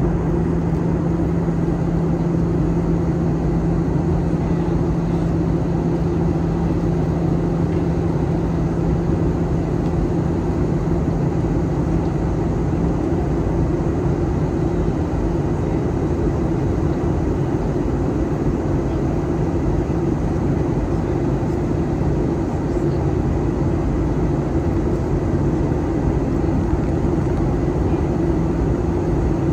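Airliner cabin noise in flight: a steady roar of engines and airflow with a constant low hum, heard from inside the cabin.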